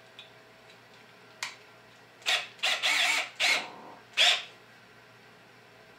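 A bit being fitted into a cordless drill's keyless chuck: one sharp click, then four short rasping bursts as the chuck sleeve is twisted by hand to tighten it.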